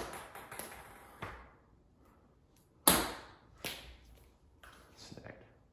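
A golf club striking a ball off a hitting mat indoors: a sharp smack about three seconds in, then a few lighter knocks, each ringing out briefly in the room.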